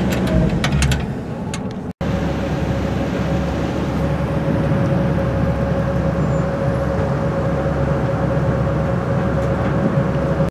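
A vehicle running steadily: an even drone with a low hum and one constant tone. It follows a few sharp clicks and a sudden cut about two seconds in.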